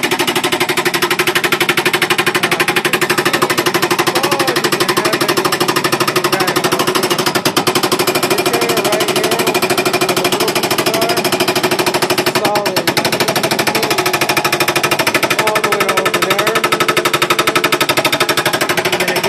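Hydraulic rock breaker hammer pounding rapidly and without pause on hard blue granite, over the steady running of the machine's engine.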